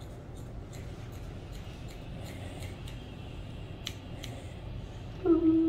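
Grooming shears snipping fur around a dog's face, a scatter of light, irregular clicks. Near the end a short, loud voice cuts in.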